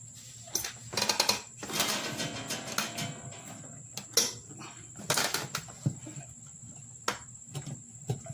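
Irregular clicks, scrapes and rubbing of hands and rubber as an inner tube is worked into a riding-lawnmower tire on its rim. A steady high-pitched insect chirring, typical of crickets, runs underneath.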